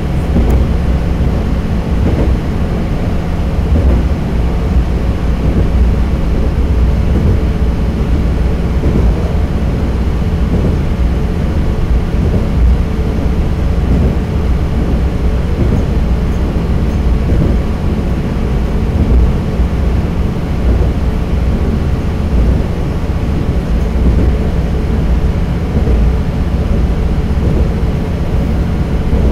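Diesel railcar running at speed through a long tunnel, heard from inside the car: a steady low rumble of engine and wheels on the rails, with a constant hum.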